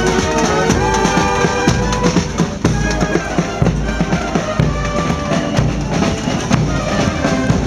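Band music with a drum beat, bass drum and snare hitting throughout, under held melody notes.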